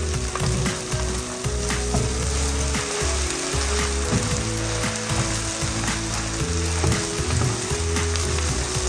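Fried rice sizzling in a hot pan while a wooden spatula stirs and turns it, with frequent short scrapes and knocks of the spatula against the pan.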